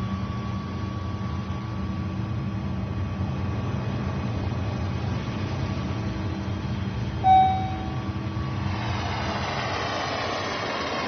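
Airliner jet engines droning steadily, with a short chime about seven seconds in, then the rushing roar of a jet passing low overhead rising near the end.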